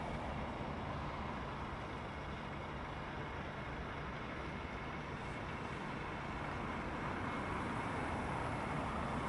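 Steady low rumble of motor vehicles and street traffic, with no distinct events.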